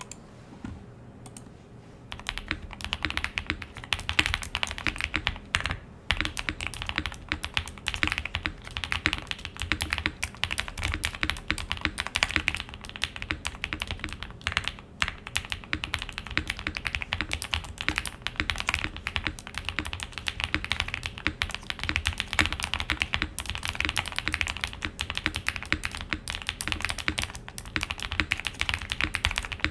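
Mr. Suit R2 mechanical keyboard with Owlabs Tungsten switches being typed on quickly and continuously, a dense, uneven run of key clacks that starts about two seconds in.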